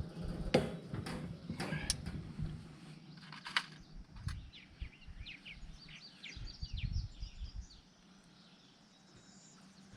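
Wire cage panels clinking and knocking as they are handled and clipped together, with several sharp clicks in the first four seconds. Then a quick run of short high bird chirps about five to seven seconds in.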